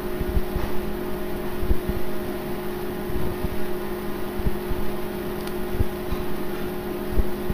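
Steady background hum holding a few fixed tones, with irregular soft low thumps throughout.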